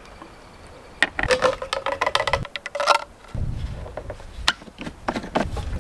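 Clicks and knocks of hands working on a portable generator's fuel cap and gas can, some ringing briefly. After about three seconds, a low rumbling haze comes in under a few more clicks.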